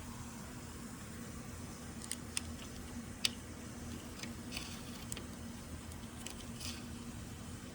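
Faint scratching and scattered clicks of a craft knife blade dragging through window screen mesh along the frame, the blade barely cutting. A faint steady hum lies underneath.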